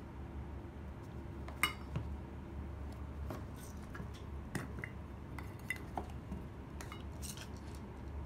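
Glass pepper grinders with stainless steel tops and their caps being handled and set down in a foam-lined box, giving scattered light clinks and knocks. The sharpest comes about a second and a half in.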